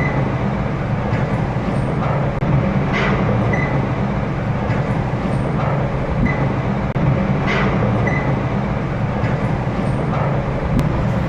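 Strong storm wind: a steady, loud rush with a deep rumble.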